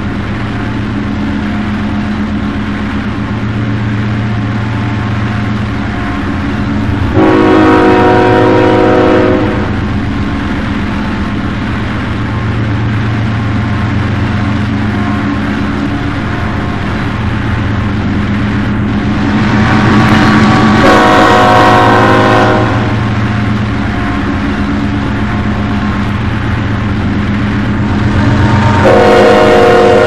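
Two GE Evolution-series (GEVO) diesel locomotives working at full throttle up a grade, a steady low growl, with the multi-note horn sounding three times: a long blast about 7 seconds in, another about 20 seconds in, and a third starting a second before the end, the crossing warning for a road crossing just ahead.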